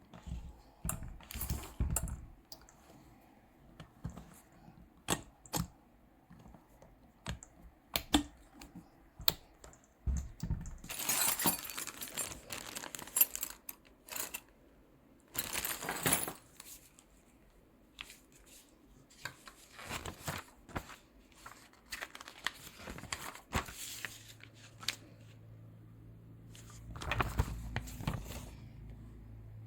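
Objects being handled: irregular clicks, knocks and rustles, with a few longer bursts of crinkling about 11 to 14 s and 16 s in. A low steady hum starts about 24 s in.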